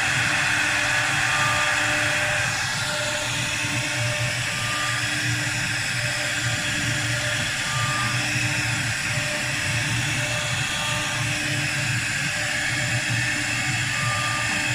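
4-axis CNC wood lathe running, its spindle turning a wooden leg blank against the cutter: a steady mechanical whine with the hiss of wood being cut, a little quieter from about two seconds in.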